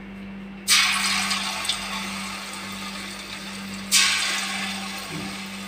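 Lumps of bonda batter dropped by hand into hot oil in a steel kadai, sizzling as they deep-fry. There are two sudden bursts of sizzling about three seconds apart, each fading slowly.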